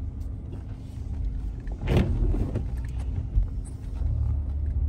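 A car driving, heard from inside the cabin: a steady low engine and road rumble with a faint hum, and a brief louder noise about two seconds in.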